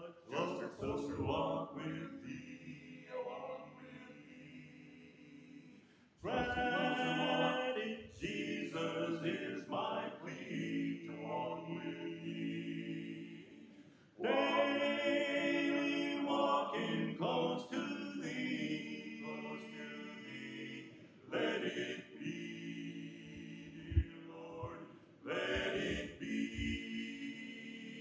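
Male vocal quartet singing a cappella, in phrases that start full and fade away. A brief sharp knock sounds near the end.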